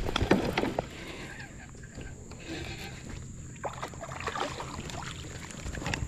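A small largemouth bass is reeled in on a baitcasting reel from a kayak: irregular knocks and splashes as the fish is fought to the boat, then lifted out of the water near the end.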